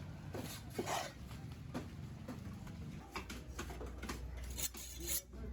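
Irregular knocks and scrapes of a knife chopping and cutting fish on a cutting block, over a low steady hum.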